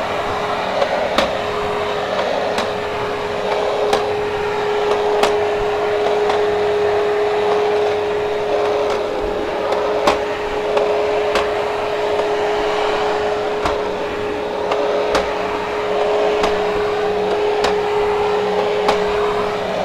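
Hoover HushTone vacuum cleaner running steadily with a constant motor whine while it picks up heavy dog hair from carpet. Sharp little clicks sound every second or so over the steady noise.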